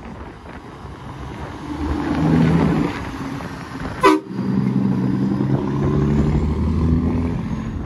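Heavy truck's horn sounding in two long blasts, the second about three seconds long, over road noise. A short, sharp sound falls between them about four seconds in.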